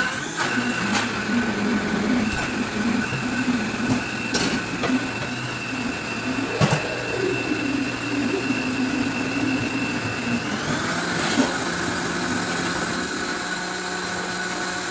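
Countertop blender running, puréeing grated potato, onion and eggs into a thick batter while a tamper is worked down into the jar. Its whine rises in pitch about ten seconds in, with a few short knocks along the way.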